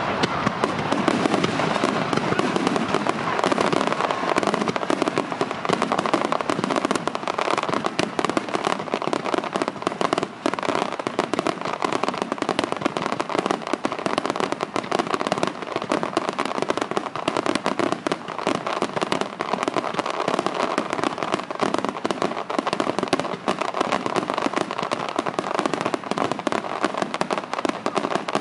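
A dense barrage of aerial fireworks: many small star-shell bursts going off in quick succession, a continuous fast popping and crackling with no let-up.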